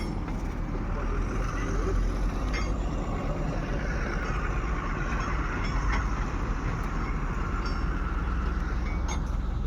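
Excavator's diesel engine running steadily, a low rumble with a few faint clinks over it.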